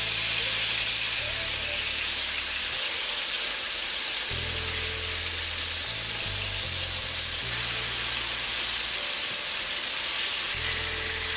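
Salmon fillets searing skin-side up in hot coconut oil in a skillet, just turned, with a steady sizzle. A backing music track with a stepping bass line plays under it.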